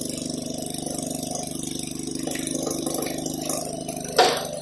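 Antique Maytag wringer washer running under its Maytag Model 72D two-stroke gasoline engine: a steady, rapid putter with a rattle. A single sudden knock sounds about four seconds in.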